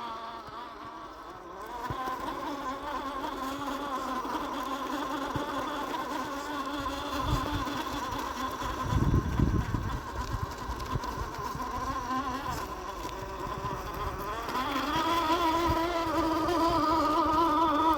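Axial SCX10 II RC crawler's electric motor and gear drivetrain whining as it crawls, the pitch wavering with the throttle. A low rumble comes through about halfway, and the whine grows louder near the end.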